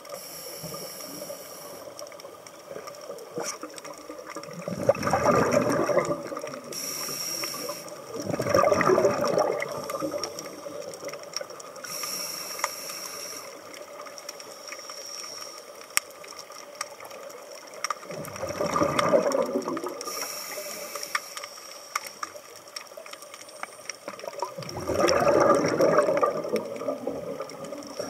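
Scuba regulator breathing heard underwater: a short high hiss on each inhale, then a louder gurgling rush of exhaled bubbles, about four slow breaths.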